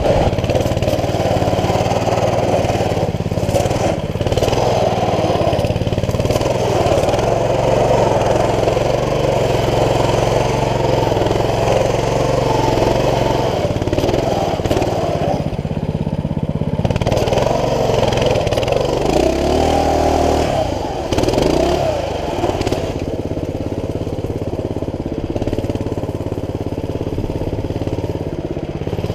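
Coleman CT200U mini bike's small single-cylinder four-stroke engine running under throttle while being ridden, its note rising and falling with the throttle. About halfway through it eases off briefly, then revs up and down a few times.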